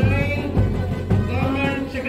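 A song with a singing voice over a steady beat, about two beats a second.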